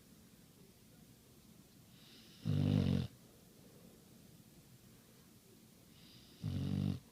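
A sleeper snoring: two loud snores about four seconds apart, each about half a second long, with quiet in between.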